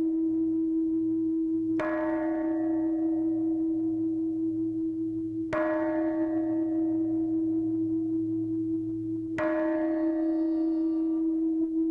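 A metal bowl bell struck three times, about four seconds apart, each strike ringing out and slowly fading over a steady sustained tone.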